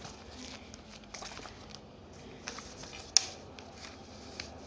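Paper sheets being handled: soft rustling with scattered small clicks, and one sharper click about three seconds in.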